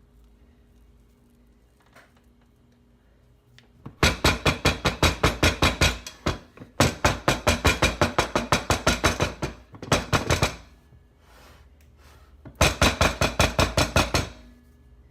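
Baking pan filled with bread batter rapped down hard and fast on a hard surface, about six knocks a second, in three runs, to settle the batter in the pan.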